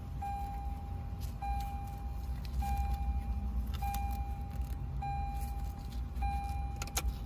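Lexus RX dashboard warning chime sounding over and over, one steady tone about a second long repeating roughly every 1.2 seconds, over a low steady hum. A sharp click near the end.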